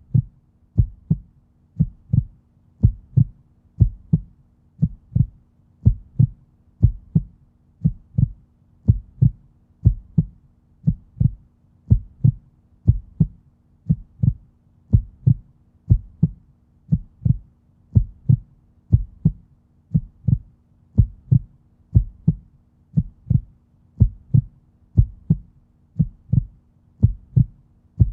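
Human heartbeat, a steady run of paired lub-dub thumps at about one beat a second, deep and muffled, over a faint steady hum.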